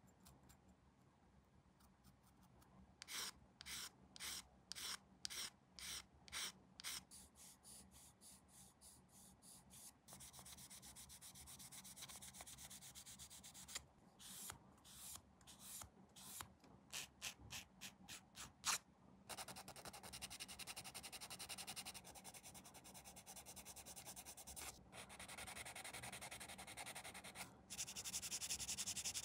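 Sanding plastic model-kit parts, abrasive rubbing against plastic. It starts as separate back-and-forth strokes about two a second, then turns to faster strokes and long stretches of continuous rubbing.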